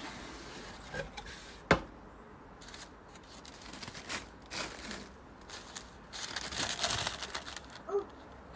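A cardboard gift box being opened and tissue paper rustling as clothes are unwrapped, with one sharp knock a little under two seconds in. The rustling comes in irregular bursts, strongest late on.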